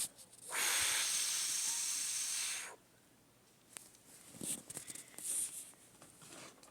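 A person's long, drawn-out hiss, about two seconds, imitating a strange noise heard outdoors on windy days; it cuts off sharply. Faint clicks and rustles follow.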